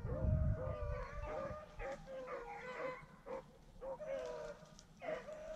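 Rabbit hounds baying in repeated, drawn-out calls, more than one voice at once at times, as the pack runs a rabbit. There is a low rumble on the microphone at the start.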